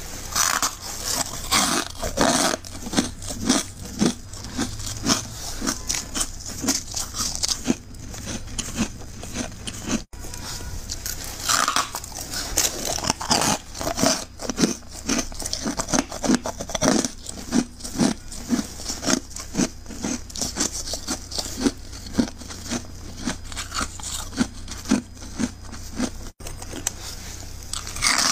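Close-up crunchy chewing of freezer frost: steady crisp crunches about two a second, with a few louder bites.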